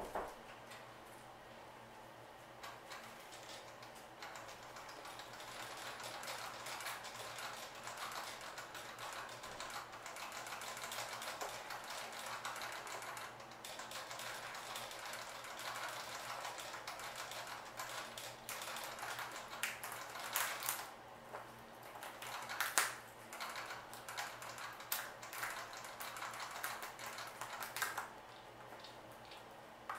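A rat gnawing and chewing seeds, a fast run of small crunching clicks, with sharper, louder cracks now and then in the second half.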